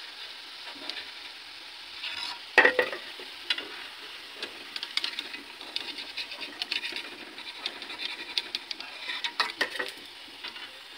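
Litti deep-frying in hot oil in a steel kadhai, a steady sizzle. Over it, a perforated steel ladle scrapes and clicks against the pan as the fried balls are lifted out, with one loud knock about two and a half seconds in.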